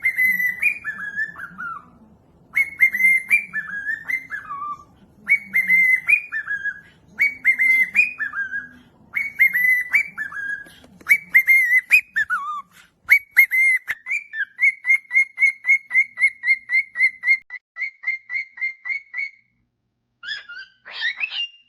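A bird singing loud, clear whistled phrases. Each phrase falls in pitch, and they repeat about every two and a half seconds. About two-thirds of the way through it changes to an even run of quick repeated notes, about three a second, then stops briefly before a short different call.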